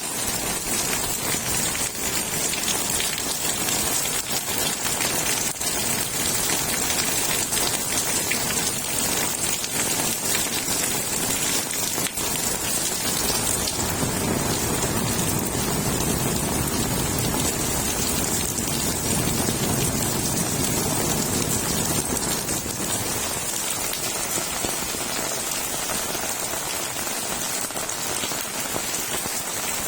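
Heavy rain pouring down steadily, a dense hiss of drops hitting surfaces. About halfway through, a deep rumble swells for several seconds and then fades.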